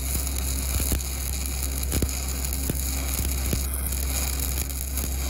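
Shielded metal arc (stick) welding with a 7018 electrode: the arc crackles and hisses steadily, with scattered sharp pops of spatter, over a steady low hum.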